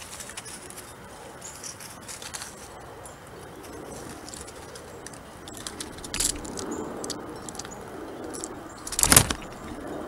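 Light rustling and scratching as a gray squirrel scrambles onto the log perches of a bird feeder, with a short sharp knock about six seconds in and a louder scraping thump about nine seconds in.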